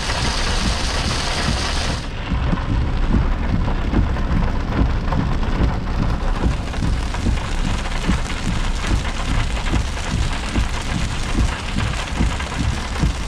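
Heavy rain pouring down on a car, heard from inside the cabin as a dense, steady patter of drops. About two seconds in the hiss turns duller.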